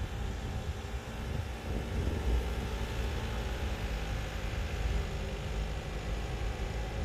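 Isuzu Elf 4x4 campervan driving slowly past on a dirt track, its diesel engine giving a steady low rumble.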